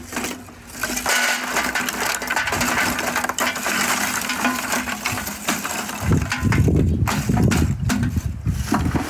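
Lump charcoal poured from a metal bucket into a metal brazier, the pieces clinking and clattering against the metal and each other. The clatter grows heavier and deeper about six seconds in, as more of the load slides out.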